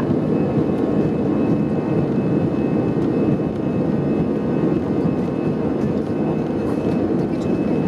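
Airbus A320 cabin noise heard from a seat: the steady, even rush of the engines and airflow, with a faint steady whine above it.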